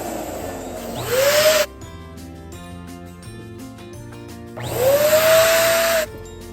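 Electric balloon pump blowing air into a balloon in two bursts, its motor whine rising as it spins up: one burst cuts off about a second and a half in, and another runs for about a second and a half near the end. Background music plays throughout.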